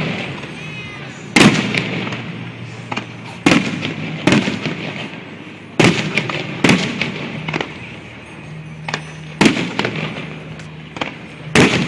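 Fireworks display: aerial shells bursting in quick succession, about eight loud booms, each trailed by an echoing rumble, with smaller pops and crackles between them.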